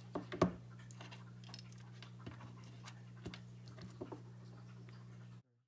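Small clicks and taps of hands handling a micro drone's wiring and connectors on a wooden desk as it is powered up, over a steady low hum. The sharpest click comes about half a second in, and all sound cuts off abruptly near the end.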